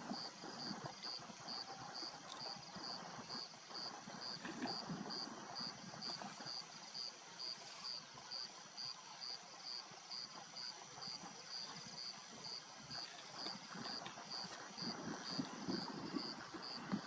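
Lion chewing on a warthog carcass, soft crunching and tearing at the meat and bone. A high-pitched chirp repeats about twice a second throughout, over a faint steady high whine.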